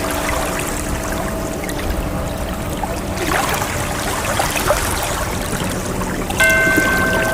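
Ocean water washing and trickling steadily, with a low steady drone under it. About six seconds in, a sustained musical chord comes in over the water.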